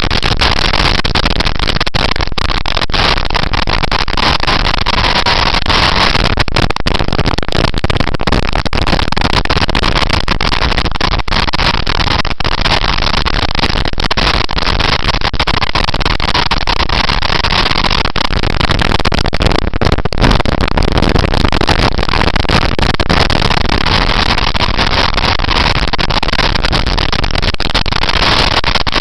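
A motorcycle ridden at speed: loud, steady wind rush over the onboard camera's microphone mixed with engine and road noise.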